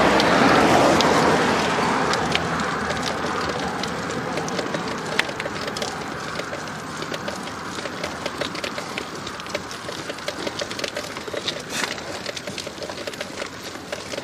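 A motor vehicle passes, its noise fading away over the first two seconds. Then comes steady road and wind noise from a bicycle on the climb, scattered with many small, sharp clicks and crackles.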